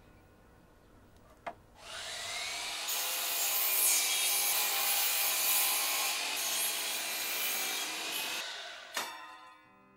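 Sliding compound miter saw: after a click, the motor whines up to speed about two seconds in and the blade cuts through a grooved wooden deck board for several seconds. The noise dies away near the end with a knock.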